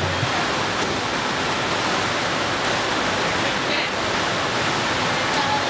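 Steady rushing noise at a food kiosk kitchen counter, even and unbroken, with faint voices near the end.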